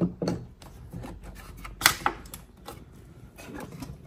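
Hard plastic clicks and knocks as a cable connector is handled and seated in the port of an EcoFlow Delta Pro Ultra power station: a few sharp clicks, the loudest just under two seconds in, with lighter taps between.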